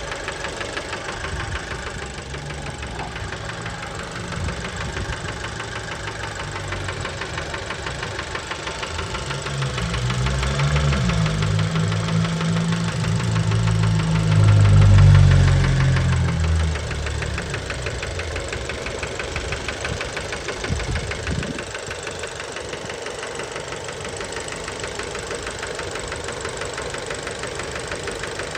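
Fiat 1.4 T-Jet turbocharged four-cylinder petrol engine running with a steady, rapid knocking and rattling. It swells louder in the middle and then falls back. The owner found the knock to be worn connecting-rod bearings (rod knock).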